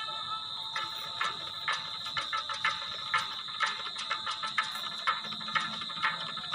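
Dhak drum struck with sticks in an uneven, quick rhythm of sharp strokes, over a steady high ringing tone.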